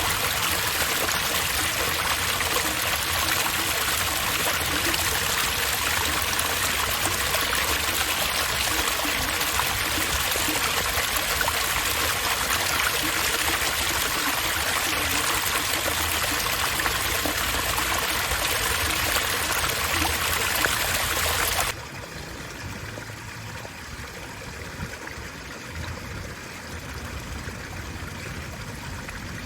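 Running water from a park water feature, a steady rushing and trickling. About 22 seconds in it suddenly becomes much quieter and duller and stays that way.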